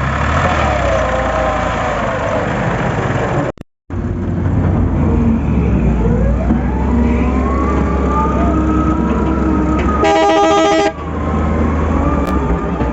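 Heavy machinery engine running, with a whine that slowly rises and falls in pitch, broken by a brief dropout to silence about four seconds in. About ten seconds in, a horn sounds for roughly a second.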